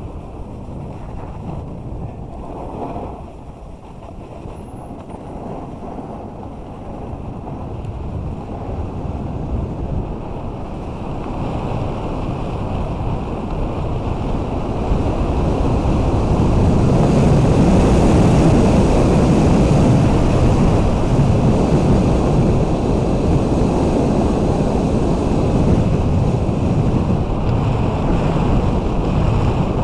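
Wind rushing over the microphone, mixed with a snowboard sliding and scraping over groomed snow. It is a steady, even rush that builds to its loudest about halfway through and then holds there.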